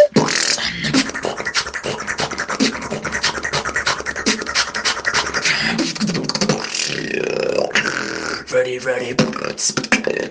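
Solo vocal beatboxing: fast, dense drum-like mouth sounds, with a stretch of buzzing pitched sounds near the end. A short loud tone sounds right at the start.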